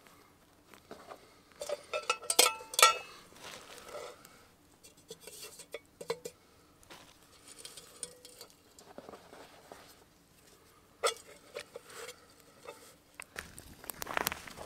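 Hands working a ball of bread dough on a floured plastic cutting board: soft pats with scattered taps and clicks, the sharpest a cluster about two to three seconds in. About a second before the end, a wood campfire starts crackling.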